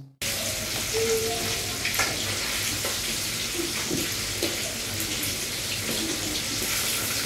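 Food sizzling as it fries in a pan, with a few light clicks and scrapes of a fork turning the pieces.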